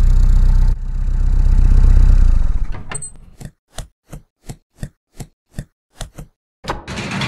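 Cartoon sound effects for a delivery van: its engine running, swelling and then dying away, a short high ping, then about eleven evenly spaced footsteps, roughly three a second, and a rattling rush near the end.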